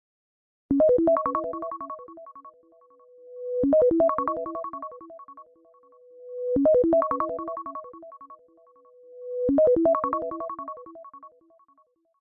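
An alarm tone: a short synthesized melody of quick notes, played four times about three seconds apart. Each repeat fades out, and a swelling note leads into the next.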